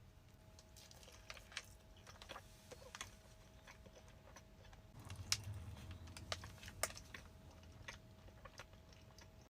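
Faint eating sounds: scattered soft mouth clicks and small taps while chewing, a few more of them about five to seven seconds in.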